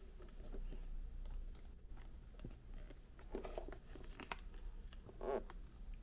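Packaging being handled: irregular crinkling, rustling and small clicks, with a louder tearing-crinkling burst about five seconds in.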